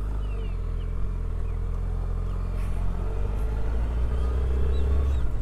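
Suzuki Hayabusa's inline-four engine running steadily at a low, even pace under way, getting a little louder near the end.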